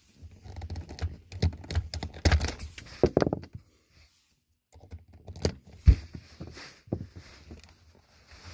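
Hard plastic SpongeBob Swap N Bop toy being handled: irregular clicks, taps and knocks, with a sharp knock about six seconds in and a second of silence a little before it.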